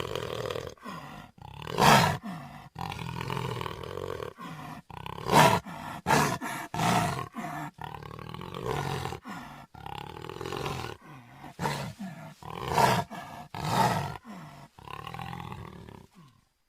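Jaguar roaring and growling in a rapid series of short, separate calls, a few much louder than the rest; the sound cuts off suddenly near the end.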